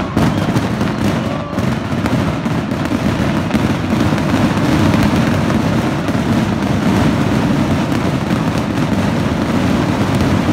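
Fireworks bursting overhead: a dense, continuous crackle of rapid bangs with no pause.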